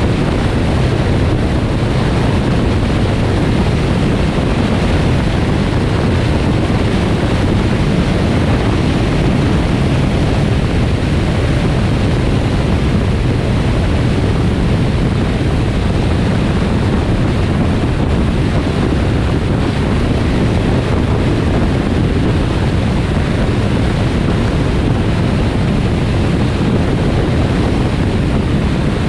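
Steady road and wind noise from a car driving along a highway: an even rush, strongest in the low end, that holds at one level throughout.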